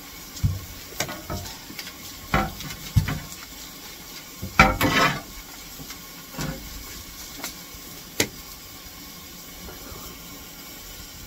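Steady hiss from the fire and from vegetables frying on a fireman's steel shovel held in a steam locomotive's firehole, broken by scattered metal knocks and clatters. The loudest clatter comes about halfway through.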